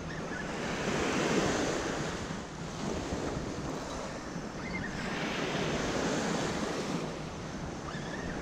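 Surf washing onto the beach, rising and falling in two slow swells, with wind buffeting the microphone.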